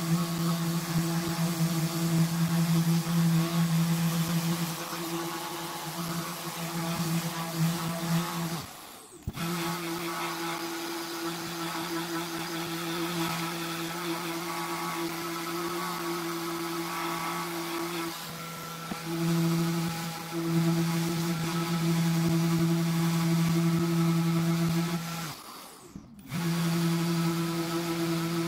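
Random orbital sander running steadily with a humming whine and the hiss of abrasive on plexiglass, sanding the sheet's frosted surface and edge. The sound cuts out briefly twice, about nine seconds in and near the end.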